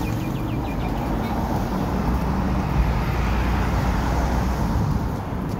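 Street traffic noise: a steady low rumble of vehicles.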